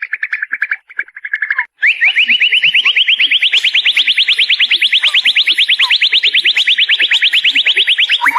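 Murai songbird singing: a fast, buzzy trill broken by two short gaps, then from about two seconds in a long, loud, rapid trill of repeated notes, about nine a second, rising slightly in pitch.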